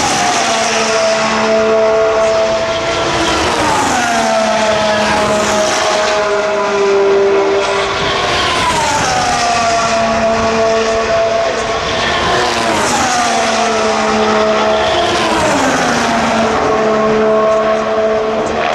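Race cars passing at high speed one after another, about five in turn. Each engine note holds a steady high pitch, then drops sharply as the car goes by.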